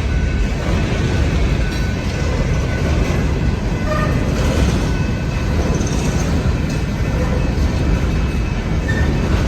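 Train passing a railroad crossing: a steady, heavy rumble of the cars rolling on the rails.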